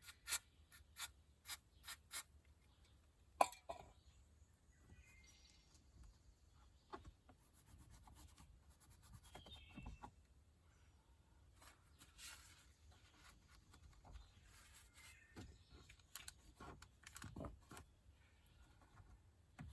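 Faint rubbing and scraping, with a run of sharp clicks in the first few seconds and scattered softer ticks after, as the door panel insert's covering is pressed and tucked into place by hand and tool.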